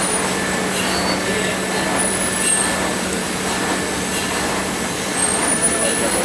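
Plastic extrusion line machinery running: a steady low hum under a constant noisy rumble, with short high-pitched squeals every second or two.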